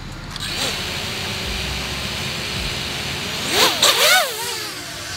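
FPV quadcopter drone's brushless motors and propellers spinning with a steady whine, then revving in quick throttle blips about three and a half seconds in as it lifts off, the pitch sweeping up and down sharply.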